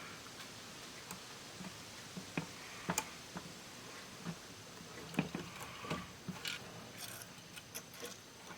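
Scattered light clicks and taps of small parts being handled as a keeper clip is fitted in an 8-track player's head mechanism, with a few sharper knocks about three seconds and five to six seconds in.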